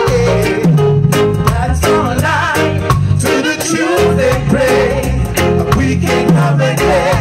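Live reggae band playing: several vocalists singing together at the microphones over electric guitar, bass and drums keeping a steady beat.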